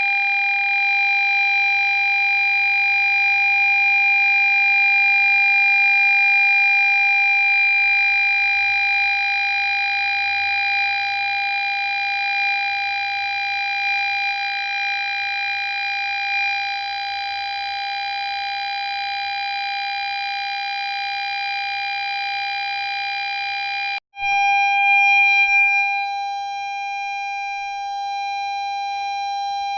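Ford Fiesta parking sensor sounding one continuous, unbroken tone rather than separate beeps. This is the solid warning such sensors give when an obstacle is very close. The tone drops out for an instant about 24 seconds in and then carries on.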